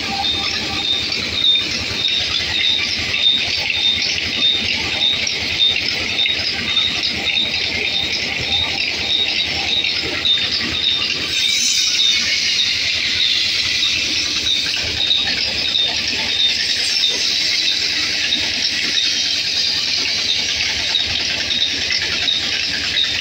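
Large belt-driven band saw running and cutting through a log, a steady high-pitched hiss and squeal with a regular light ticking. About halfway through the sound turns brighter and harsher.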